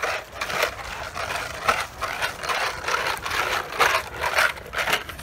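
Quick, irregular footsteps swishing and rustling through grass and dry fallen leaves, as on a run across a leaf-covered lawn.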